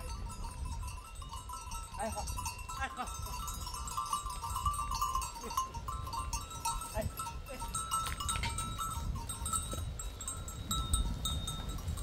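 Animal calls over steady ringing tones and a constant low rumble.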